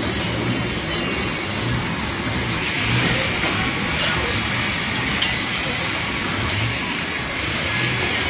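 Storm wind and heavy seas heard from a boat's deck in rough weather: a steady, loud rush of wind and water, with a low engine rumble that swells and fades underneath. A sharp tick comes about five seconds in.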